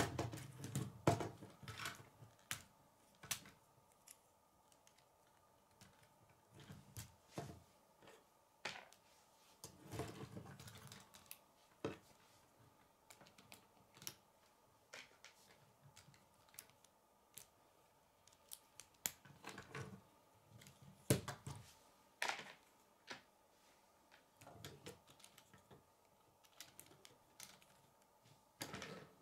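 K'nex plastic rods, connectors and a wheel being handled and snapped together: irregular sharp plastic clicks, with a few duller knocks near the start and about ten seconds in.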